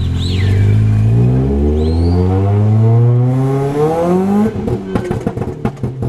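Straight-piped Kia Rio's engine revving, the pitch climbing steadily for about four seconds. Then the throttle lifts and the exhaust lets off a rapid string of pops and bangs on the overrun.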